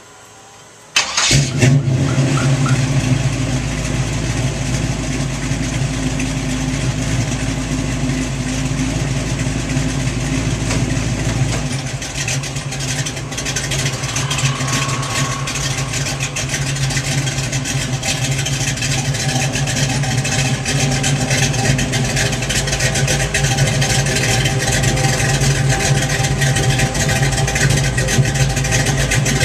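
Cammed small-block Chevy 350 V8 with headers and a 3-inch X-pipe dual exhaust firing up about a second in, then idling steadily through the exhaust.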